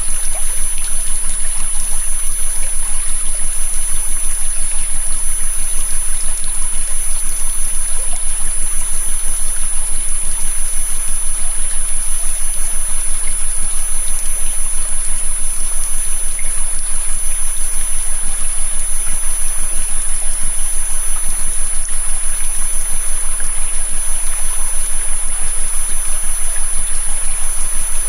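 Recorded river flowing steadily, overlaid with a synthetic frequency track: a steady high-pitched tone with fainter tones above and below it, and a low hum.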